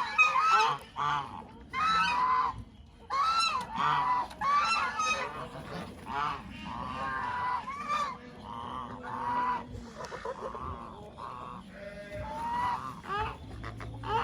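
Farm geese honking repeatedly, many short calls overlapping one another with hardly a pause.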